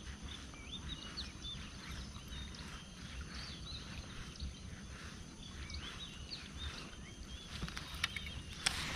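Many small birds chirping, with short, quick calls tumbling over one another, over a low wind rumble on the microphone. Near the end come a few sharp clicks from the baitcasting reel being handled.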